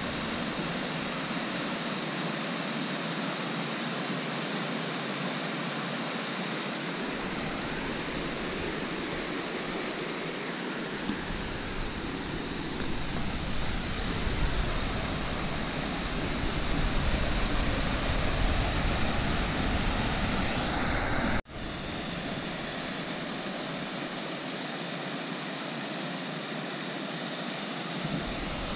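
Waterfall cascading over rock ledges: a steady, even rush of falling water. It cuts out for an instant about three-quarters of the way through and picks up again.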